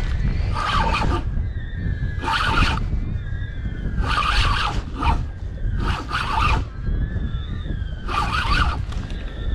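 Large spinning fishing reel whirring in about six short bursts as line is wound in against a hooked fish. A steady rumble of wind on the microphone lies under it.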